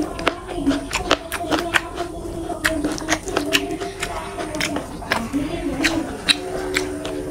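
Close-miked wet chewing and mouth smacking as rice and fish curry are eaten by hand, heard as many quick sharp clicks. A low wavering tone runs underneath and holds steady near the end.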